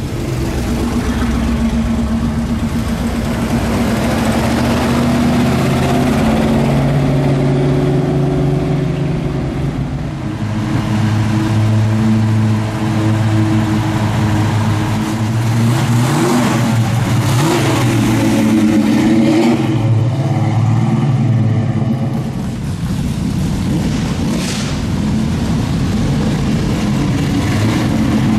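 Carbureted muscle-car V8 engines rumbling at low speed as they drive past: first the 1970 Hemi Challenger's 426 Hemi V8, then a 1969 Pontiac GTO's V8, with its revs rising and falling several times.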